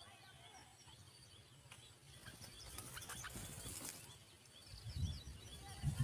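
Small birds chirping in short high notes over quiet outdoor ambience, with a low rumbling noise building near the end.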